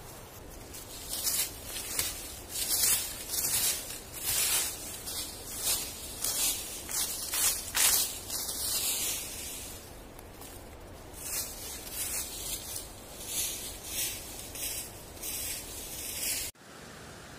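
Hand tool scraping through dry leaf litter and soil in repeated quick strokes, clearing a patch of forest floor down to bare earth. There is a brief lull about ten seconds in, then more strokes until the sound cuts off suddenly near the end.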